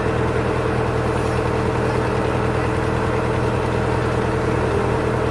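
Boat engine running steadily at low speed, a constant droning hum with no change in pitch.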